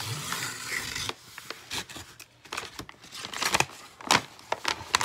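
Plastic postal satchel being torn open and handled: a continuous rip for about the first second, then scattered crinkling and rustling.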